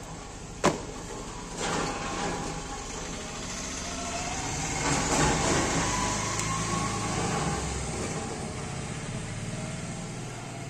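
A steady low engine hum, like a vehicle running, that swells and then fades around the middle, with one sharp click about a second in.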